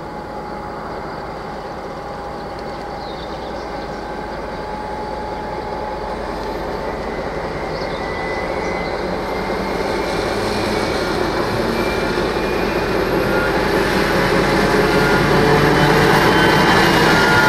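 ZSSK class 754 diesel locomotive hauling a passenger train, its engine running as it approaches and passes close by, getting steadily louder toward the end.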